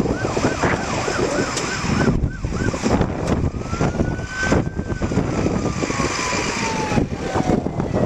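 Siren of an arriving fire-rescue truck: a fast yelp of about four rising-and-falling whoops a second for the first few seconds, then a single wail that rises, holds and slowly falls away. Strong wind noise on the microphone runs underneath.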